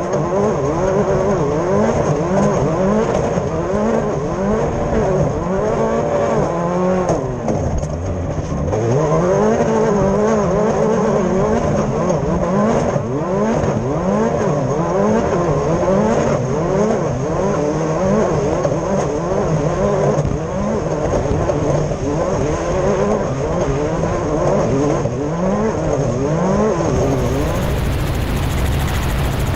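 Class 10 off-road race car's engine revving up and down over and over as it drives, its pitch rising and falling every second or two, with a steady high whine above it.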